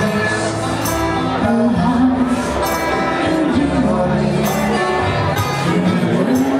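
Live music from a singer and guitar duo: a sung melody over strummed guitar, played through a PA.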